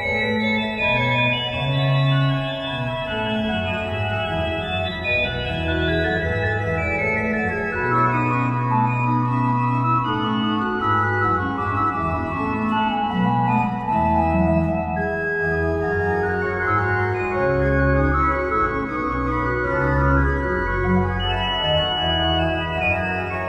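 Organ music: sustained chords over held bass notes that change every second or two.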